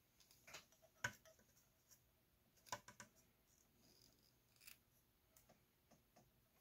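Faint, sparse small clicks and taps of metal against a circuit board as a component lead is held in place and soldered. The sharpest click comes about a second in, and a small cluster of clicks comes near three seconds.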